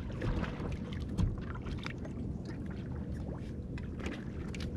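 Sounds aboard a small fishing boat on the water: a steady low rumble with scattered clicks and knocks, and a faint steady hum underneath.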